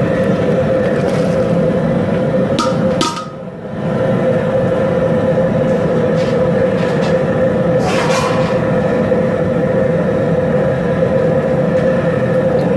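Propane jet cooker burning steadily under a large aluminium pot at a rolling boil: a loud, steady roar with a constant tone in it. It drops away briefly a little after three seconds, and a few light clicks come through.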